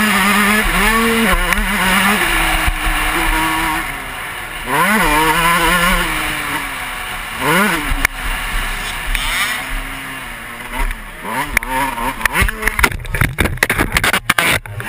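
Suzuki RM125 two-stroke motocross bike engine running hard and revving up through the gears, its pitch rising several times. Near the end comes a rapid series of sharp knocks and thuds as the bike and rider crash and tumble.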